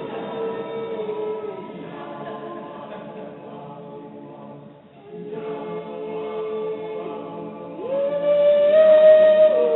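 Background music: a choir singing long held notes, which break off briefly midway, then return and step up to a higher, louder note near the end.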